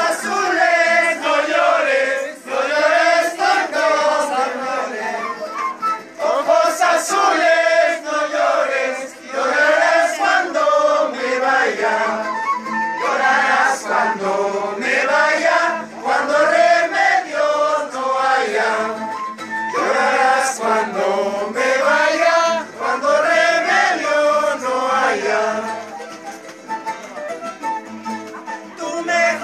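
A group of voices singing a folk song together in chorus, with a guitar accompanying.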